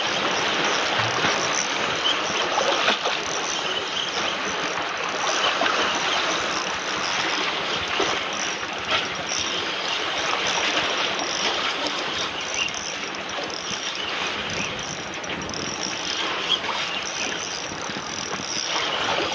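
Sea water sloshing and splashing in a steady rush, with no clear engine tone.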